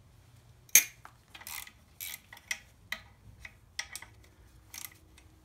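A sharp metallic clank about a second in, followed by a series of lighter clicks and scraping knocks of tools and metal engine parts being handled.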